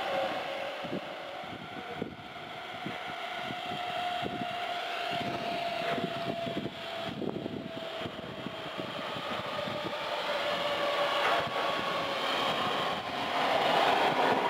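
A passenger train approaching and running past close by, with a steady whine that drifts slightly down in pitch and the sound growing louder near the end as the train comes alongside.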